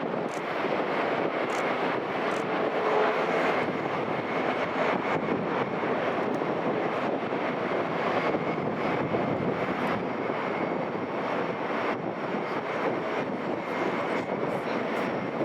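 Boeing 737-8-200 MAX jet engines running, a steady noise with a faint high whine.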